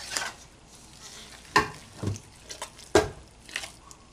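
Oiled bread dough being turned and pressed by hand in a stainless steel mixing bowl: wet squelching and slapping, with a few sharp knocks, the loudest about a second and a half in and again about three seconds in.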